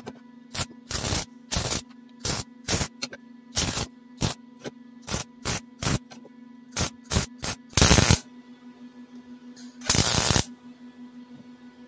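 Wire-feed (MIG) welder tacking steel exhaust tubing to a muffler: a quick string of short, sharp tack welds, then two longer welds of about half a second each, near eight and ten seconds in, over a steady hum.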